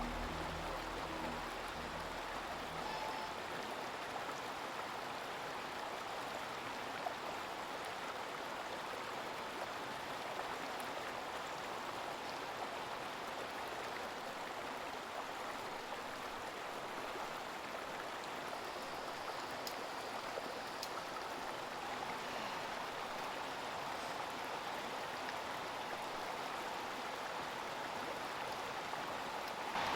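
Steady rushing of a flowing creek, with a few faint ticks of splashing water.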